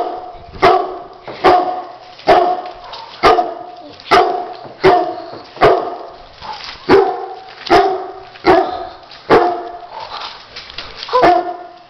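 A dog barking over and over in a steady rhythm, about fourteen sharp barks, a little faster than one a second.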